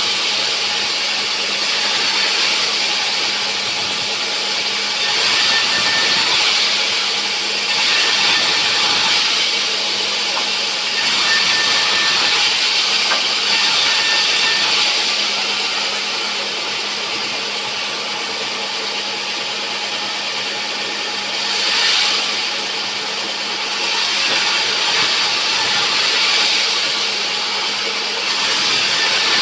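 A sawmill saw cutting through a rubberwood log over the steady hum of its motor. The cutting noise swells and eases every few seconds as the saw works through the wood.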